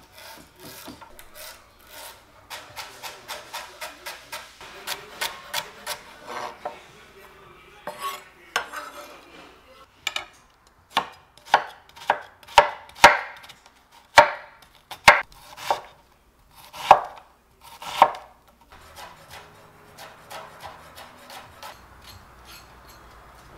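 Chef's knife cutting vegetables on a wooden cutting board: first a quick run of light chops, about four a second, through celery, then slower, louder cuts about once a second through an onion. Near the end, softer repeated scraping strokes of a vegetable peeler on a carrot.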